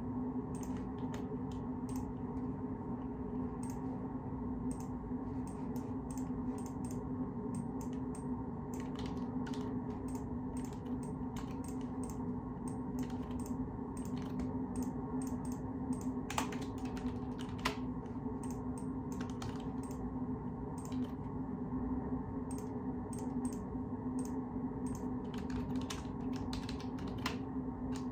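Typing on a computer keyboard: quick, irregular keystroke clicks in short runs, over a steady low hum.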